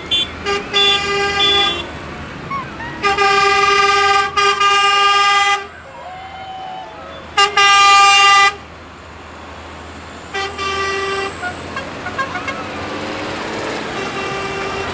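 Tractor horns tooting over the low rumble of running engines. There are several short toots at first, a long blast about three to six seconds in, another about seven and a half seconds in, and more short toots around ten seconds and near the end.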